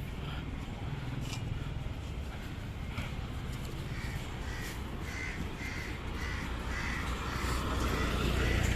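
Crows cawing, a run of short repeated calls from about halfway through, over the low rumble of street traffic that grows louder near the end.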